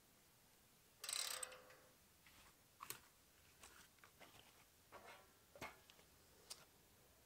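A light metallic clank with a brief ring about a second in, then scattered faint taps and clicks as steel scaffold parts are handled.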